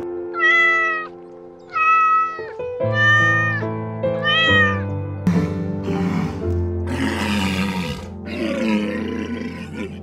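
A domestic cat meowing four times, each meow about half a second long, over background music. From about five seconds in, walruses make rough, noisy calls.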